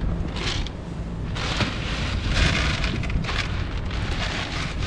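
Dry cat food rattling inside a plastic tub as it is handled, in several short crackly bursts, over a low rumble of wind on the microphone.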